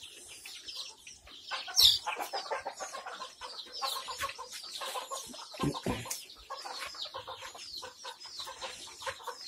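A flock of Kadaknath and desi chickens clucking and calling over one another, with one louder, sharper call about two seconds in.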